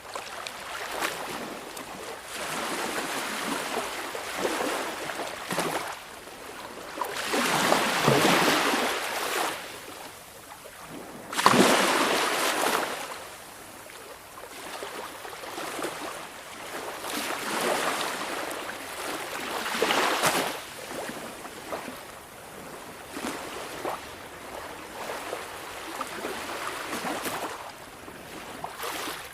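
Calm sea waves breaking and washing onto the shore, swelling and ebbing every few seconds. The two largest come about eight and twelve seconds in.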